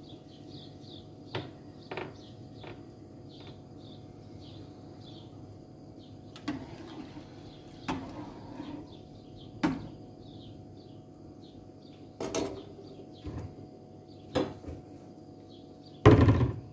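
Kitchen utensil sounds: a metal ladle knocking and scraping in an aluminium soup pot on a gas stove, a dozen or so separate knocks and clicks, with a loud knock and rustle near the end. Small birds chirp faintly in the background throughout.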